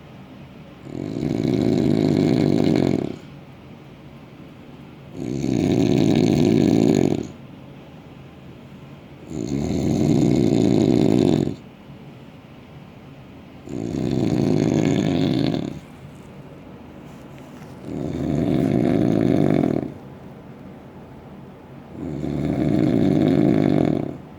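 Loud snoring: six long snores, each about two seconds, coming about every four seconds in an even rhythm, with much quieter stretches between them.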